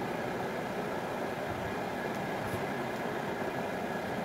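Steady background hum and hiss, constant in level with no distinct events.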